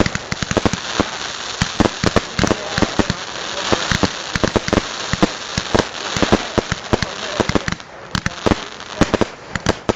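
Fireworks going off in rapid succession, heard close up from the firing position. Irregular sharp bangs come several times a second over a continuous crackling hiss.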